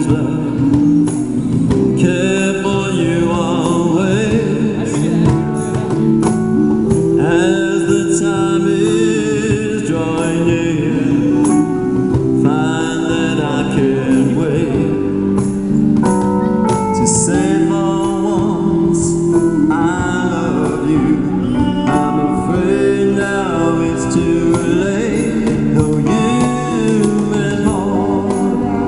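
A live band playing a song: a man singing lead over electric keyboard, electric guitar and cajon, with a tambourine shaken along and a woman's backing vocals.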